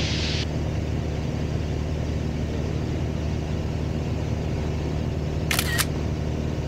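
A smartphone camera's shutter click sounds once, about five and a half seconds in, over the steady drone of a light aircraft's piston engine and propeller in the cockpit.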